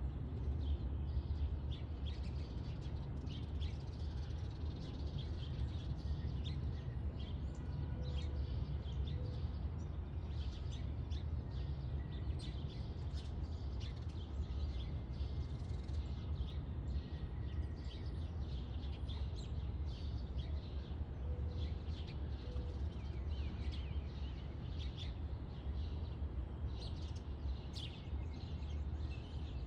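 Many small birds chirping and calling, short quick notes overlapping throughout, over a steady low rumble.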